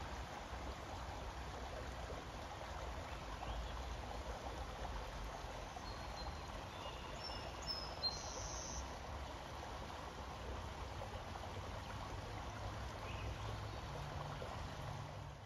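Shallow creek babbling steadily over rocks and stones, with a few short high chirps about halfway through.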